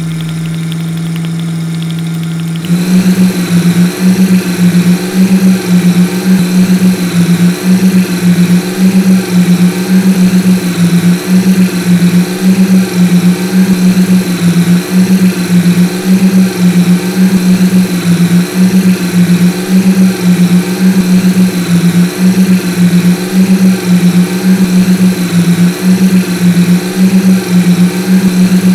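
Looped cartoon engine sound effect: a steady low engine hum, then about three seconds in it gets louder and turns into an even throb that swings back and forth between two pitches, like a revving engine held on a loop.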